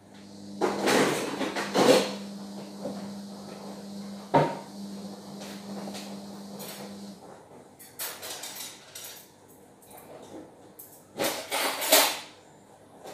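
Dishes, pots and pans clattering and knocking as kitchenware is handled and stacked, with loud bursts near the start and near the end and a single sharp knock in between. A steady low hum runs underneath and stops about halfway through.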